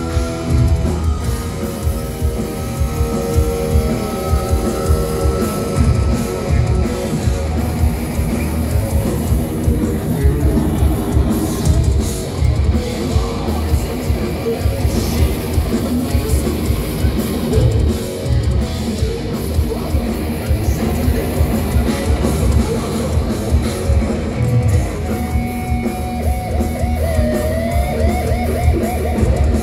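Thrash metal band playing live at full volume: distorted electric guitars, bass and a drum kit driving a fast riff. Near the end a higher guitar line comes in with bends and vibrato.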